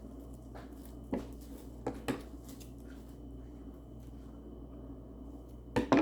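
A few short clicks and crinkles of toy packaging being handled, about a second in and around two seconds in, with a sharper double click near the end, over a steady low hum.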